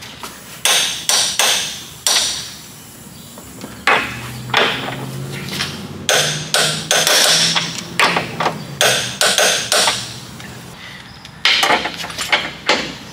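Torque wrench tightening the lower control arm bolts to spec: sharp metallic ratchet clicks in several quick clusters, with short pauses between.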